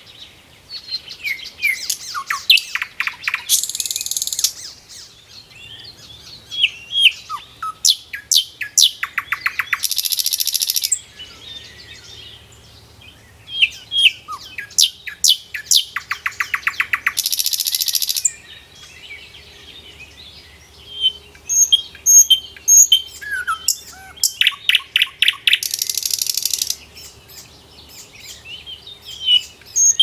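Common nightingale singing: phrases a few seconds long of repeated whistled notes, rapid trills and buzzy rattles, with short pauses between phrases.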